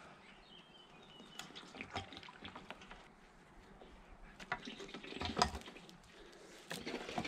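Cola being poured into a rusty steel motorcycle fuel tank, liquid splashing and gurgling in uneven spurts, loudest about five seconds in.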